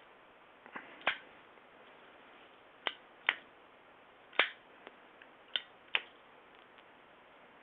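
Zippo lighter's metal lid clicking open and snapping shut during flip tricks: seven or so sharp, irregular clicks, several coming in pairs less than half a second apart.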